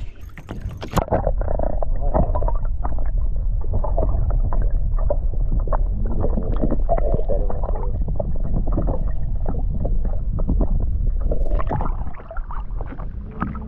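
Muffled underwater rushing and gurgling heard through a submerged camera, a deep rumble with scattered small clicks and knocks as it moves through the water.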